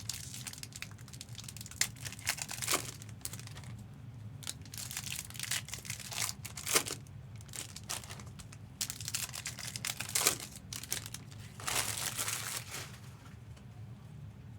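Trading-card pack wrappers crinkling and tearing as packs are opened, in irregular bursts that die down near the end, over a steady low hum.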